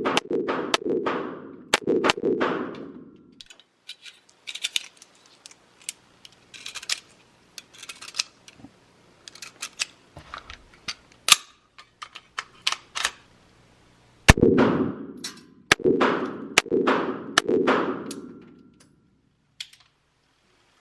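Gunshots at a shooting range, each with an echoing tail. A quick string of about six loud shots opens the clip, lighter sharp cracks follow, and a second string of loud shots comes about two-thirds of the way through.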